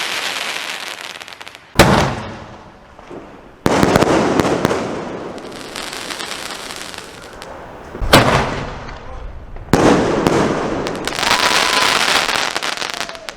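Multi-shot sky-shot firework cake firing, with sharp bangs about two seconds in and again about eight seconds in. Each bang is followed by several seconds of dense crackling that slowly dies away.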